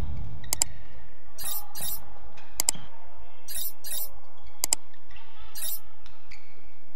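Badminton rackets striking a shuttlecock in a fast rally: about six sharp hits roughly a second apart. Crisp, full cracks alternate with thinner, high-pitched ticks.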